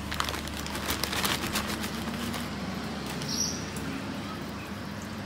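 Clear plastic zip-lock bag crinkling and rustling as hands open it and pull plants out. The crackle is busiest in the first couple of seconds, over a steady low hum.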